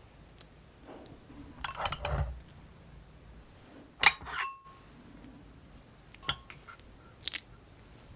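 Eating utensils clinking against dishes: a few separate clinks, the loudest about four seconds in with a short ring after it.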